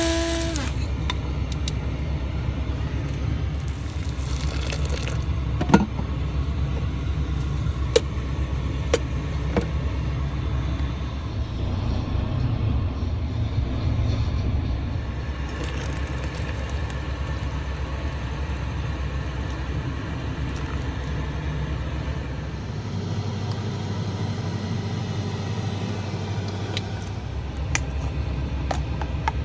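Steady low rumble of a semi-truck's engine heard inside the cab, with a few sharp clicks and taps.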